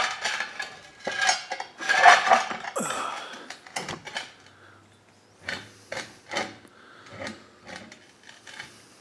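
Metallic clinks and clanks from parts and tools being handled on a mini lathe that is not running, dense and loud for the first three seconds, then scattered single clicks.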